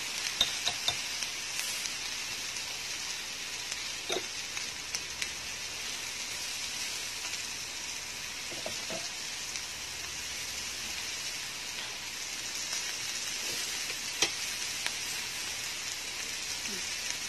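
Chicken, crab sticks and garlic sizzling steadily on a round samgyupsal grill pan, with a few light clicks of chopsticks against the pan, the sharpest about 14 seconds in.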